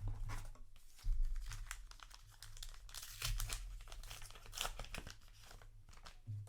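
Paper booster-pack wrapper crinkling and being torn open, with a dense run of irregular crackles.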